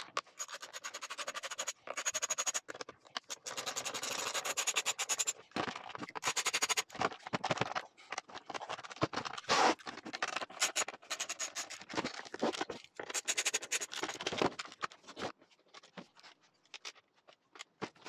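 Hand tool working the screws out of the casing of a Stihl TS400 petrol cut-off saw: runs of rapid clicking and scraping with short pauses between, thinning out near the end.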